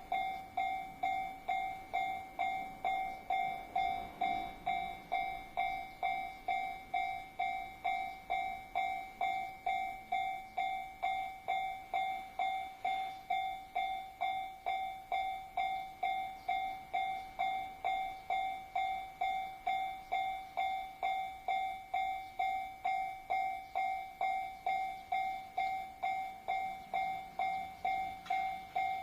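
Japanese railway level-crossing alarm ringing, its bell-like tone sounding about twice a second, each stroke decaying before the next, steady throughout.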